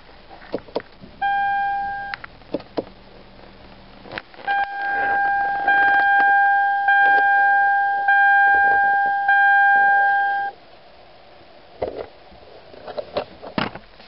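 Lexus IS250 dashboard warning chime: one steady electronic tone lasting about a second, then, after a short pause, the same tone held for about six seconds, pulsing slightly about every second and a bit, before cutting off. A few sharp clicks and knocks come before, between and after the chimes.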